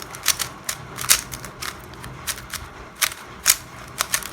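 Yuxin Kylin V2 M magnetic 3x3 speedcube being turned, its plastic layers giving an uneven run of sharp clicks, two or three a second, as the turns snap into place.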